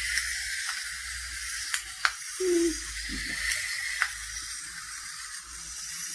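Wind-up clockwork ladybird toys whirring as they scuttle across a paper sheet, with a few sharp clicks.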